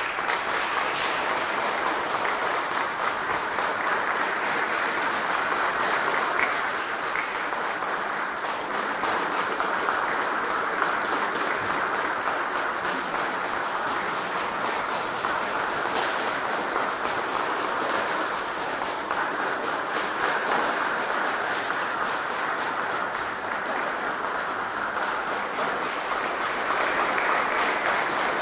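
Audience applauding steadily, many hands clapping in an even, dense patter.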